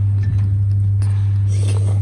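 A loud, steady low hum with a few faint light clicks over it.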